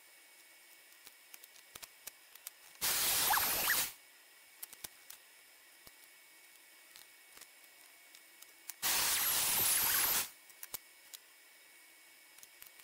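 Light taps and clicks of a plywood template and metal bar clamps being handled and positioned, broken twice by about a second of loud rushing noise with a thin wavering whistle in it.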